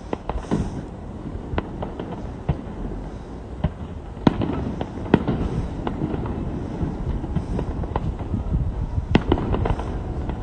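Aerial fireworks shells bursting: a run of irregular sharp bangs and crackles over a continuous low rumble, the loudest bangs about four, five and nine seconds in.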